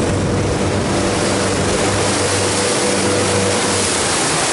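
Motorboat under way: the engine hums steadily under the rush and splash of water along the hull.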